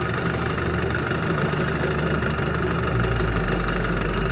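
Evinrude outboard motor running steadily at low trolling speed, heard close from the boat's stern.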